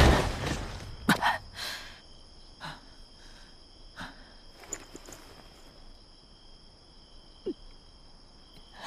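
A heavy thud as a body crashes onto cobblestones, followed about a second in by a couple of smaller knocks and then scattered faint ticks. Crickets chirr steadily in a night ambience throughout.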